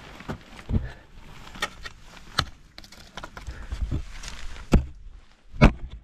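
Ice axes and crampons striking water ice during a climb: a handful of sharp, irregular blows about a second apart, the loudest two near the end, with softer scraping between them.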